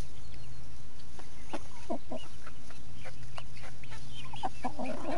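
Domestic hens clucking in short, scattered calls while being hand-fed, several calls overlapping near the end.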